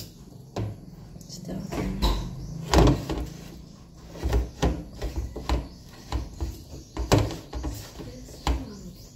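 Wire whisk beating thick butterscotch brownie batter in a mixing bowl: irregular knocks and clinks of the whisk against the bowl, with scraping between them.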